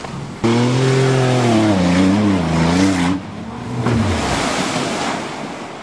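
A 1989 Caravan minivan's engine running hard at full throttle, its pitch wavering, as it speeds down the hill. Near the end the engine fades into a rush of noise as the van plunges into the lake.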